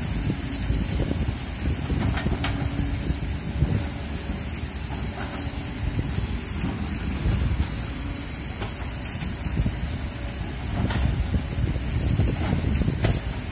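Kobelco SK200 hydraulic excavator's diesel engine running as the machine works its bucket through loose soil, with heavy wind noise on the microphone.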